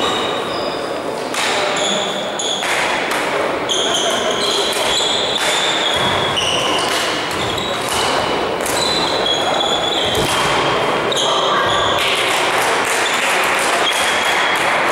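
Badminton doubles rally: repeated sharp racket strikes on the shuttlecock and many short high squeaks from shoes on the court floor, echoing in a large sports hall, with voices in the background.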